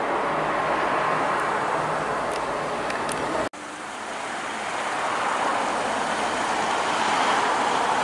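Steady road and engine noise of a car driving along. About three and a half seconds in it cuts out for an instant, then carries on unchanged.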